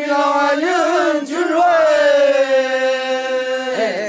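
Group of Ollo Naga men singing a traditional festival chant together. A steady low note lies under a higher line that wavers twice, then is held long and sags slightly before wavering again near the end.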